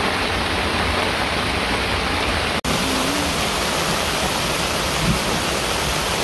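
Heavy downpour: rain pouring steadily and hard, first falling through trees onto grass, then, after a brief break about two and a half seconds in, beating on the polyester fly of a Coleman Sundome dome tent, heard from inside, where it is loud and hissier.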